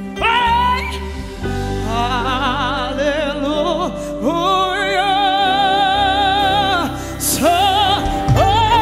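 A woman singing a worship song in long held notes with a wide vibrato, over a steady low instrumental backing.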